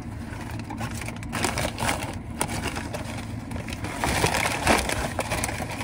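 Brown paper takeout bag being handled and crumpled, crackling irregularly and growing louder about four seconds in.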